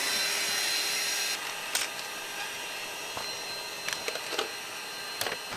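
Small electric air pump running with a steady whine, inflating an air mattress, with a few light clicks and knocks as it is handled.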